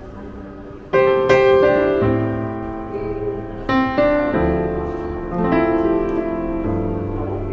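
Background piano music: slow notes and chords that ring on, coming in about a second in after a quiet start.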